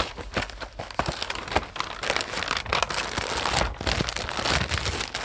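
Paper packing sheet crinkling and rustling as a cardboard box is opened and handled: a dense run of irregular crackles.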